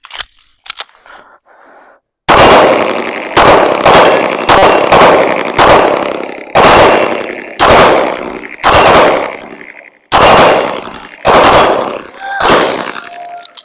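Handgun shots from two shooters firing at steel plates: about a dozen sharp reports at roughly one-second, uneven spacing, starting a couple of seconds in, each with a long echoing decay.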